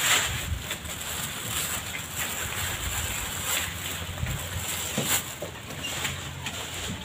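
Wind buffeting the microphone in an uneven low rumble over open-air background noise, with a few short sharp clicks.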